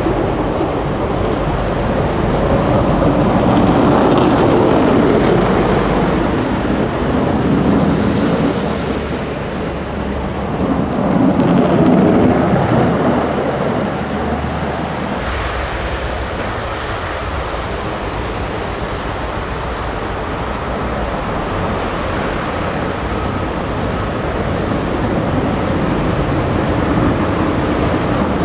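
Heavy snow plow trucks passing close, their diesel engines running while the lowered front plow blades scrape the road and push slush aside in a steady rushing noise. It swells loudest as trucks go by, about four seconds in and again around twelve seconds in.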